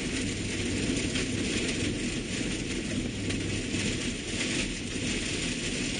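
Steady road noise inside a moving vehicle's cab: the engine's low hum and the tyres running on a snow-covered road.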